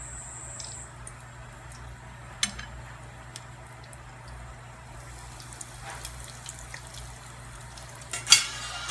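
Hot oil sizzling steadily as breadcrumb-coated bread sausage rolls fry, with a sharp click about two and a half seconds in and a louder short clatter near the end.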